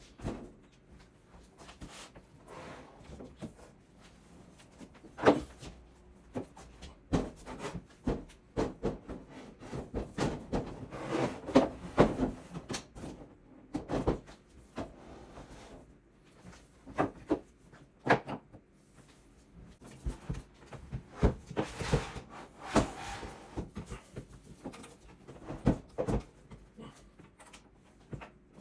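Parts of a watchmaker's workbench being handled and fitted together during assembly: irregular knocks, clacks and short scrapes, some loud single knocks among them.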